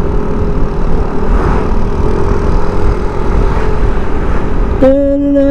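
Yamaha NMAX 155 scooter's single-cylinder engine running steadily while riding at moderate speed, with heavy wind rush on the action-camera mic and a faint steady engine drone under it. Near the end a loud held pitched tone cuts in.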